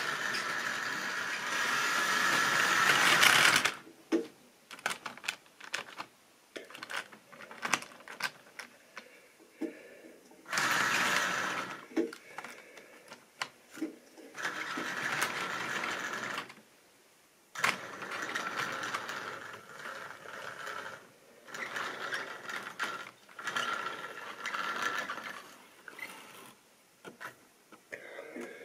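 Model trains running on sectional track: a steady mechanical running noise with wheels clicking over rail joints and points. It is loudest in the first few seconds, as a train passes close, then comes and goes in stretches of clicking and rattling.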